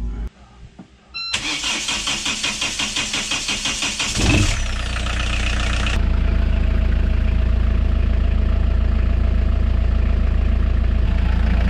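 Marine diesel engine cranked on its starter, with about three seconds of quick even pulses, then firing about four seconds in and settling to a steady idle. It is the first test run after a new raw-water pump impeller and gasket were fitted, with the engine run to check for leaks.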